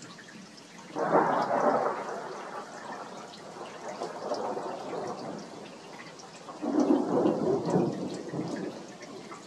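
Two rolls of thunder over steady rain. The first breaks sharply about a second in and rumbles away over a few seconds; the second comes in about two-thirds of the way through. Raindrops tick and drip throughout.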